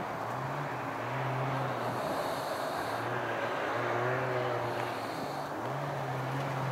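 Ski-Doo Rev snowmobile's two-stroke engine running at low speed, a steady engine note whose pitch steps up a little about half a second in and again near the end.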